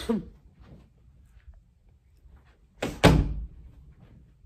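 An interior door shutting with a single heavy thud about three seconds in.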